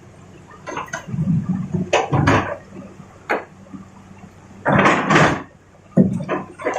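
Rock being handled by an excavator: irregular knocks and clatters, with a longer rush of tumbling stone about five seconds in, over a faint steady low hum.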